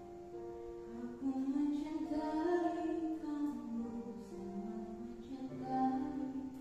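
A girl singing a slow, sustained solo melody into a microphone with vibrato on the held notes, over an instrumental accompaniment.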